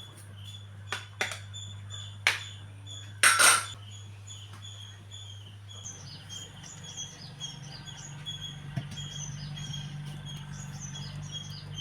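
Small birds chirping repeatedly, the chirps coming thicker in the second half, over a steady low hum. A few sharp clicks come early, and a loud short noisy burst about three seconds in.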